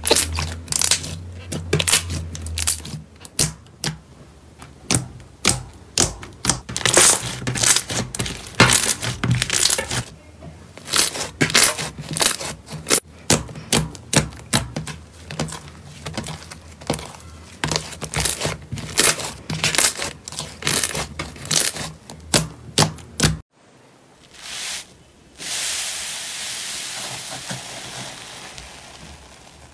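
Hands pressing and kneading fluffy slime, the trapped air popping in a quick, irregular run of sharp clicks and crackles. About 23 seconds in it changes to a fine, steady fizzing crackle that slowly fades, as a hand sinks into a bowl of foamy slime.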